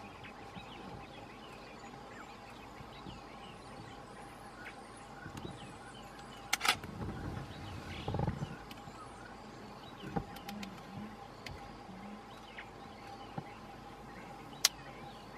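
Faint animal sounds from a pack of African wild dogs facing spotted hyenas: a low growl about eight seconds in, a few shorter low calls after it, and faint high chirps over a steady quiet hum. Two sharp clicks, one near the middle and one near the end.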